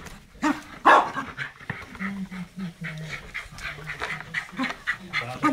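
Small dog giving two short barks, then panting rapidly, about three or four breaths a second, while it plays with a ball.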